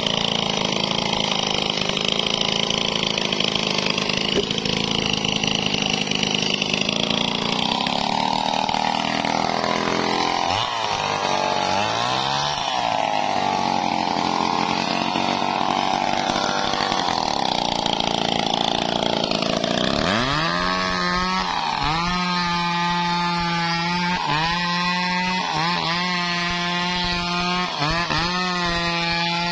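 Stihl MS 381 two-stroke chainsaw running at high revs, cutting into the trunk of a large teak tree. Its note wavers under load at first. In the last third it holds a high steady pitch that dips and recovers about every two seconds.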